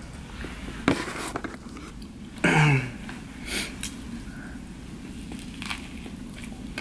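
Someone biting and chewing a toasted bacon, egg and hash-brown sandwich, heard as scattered soft crunches and clicks. A short low vocal sound with falling pitch comes about two and a half seconds in.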